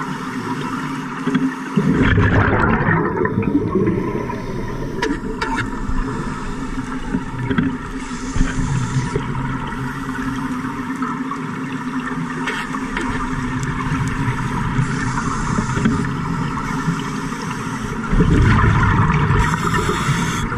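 Underwater sound of scuba divers breathing through regulators: exhaled bubbles gurgle and rush loudly twice, about two seconds in and again near the end, over a steady low underwater hum.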